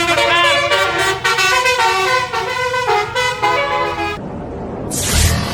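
Bus telolet horn, a multi-trumpet musical air horn, playing a tune of held notes that step up and down, cutting off about four seconds in. Road noise follows, with a short rushing sound near the end.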